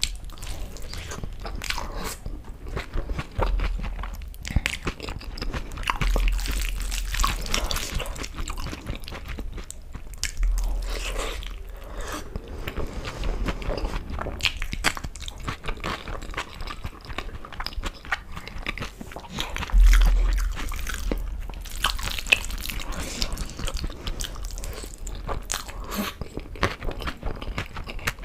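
Close-miked chewing and wet mouth sounds of a person eating rice mixed with dal, with the soft squish of fingers gathering the rice. Low thumps come now and then, the loudest about two-thirds of the way through.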